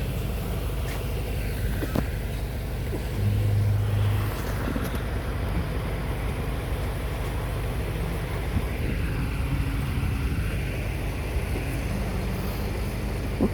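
Rice combine harvester's diesel engine running steadily, with a short rise in its low drone about three seconds in.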